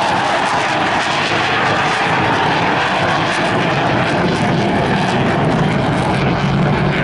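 Avro Vulcan XH558's four Olympus turbojets at high power as the bomber flies past and climbs out: loud, steady jet noise.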